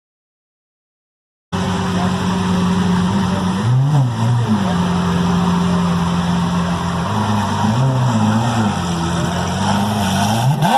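Car driving in heavy rain, its engine running at a steady pitch that dips and rises twice, under a constant hiss of tyres on the wet road and rain. The sound cuts in suddenly after a second and a half of silence.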